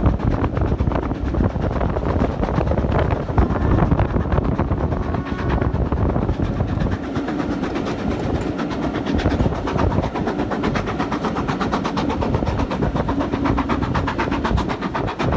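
Steam-hauled passenger train running along the track, heard from a carriage window: a steady rumble and rattle of the carriage wheels on the rails.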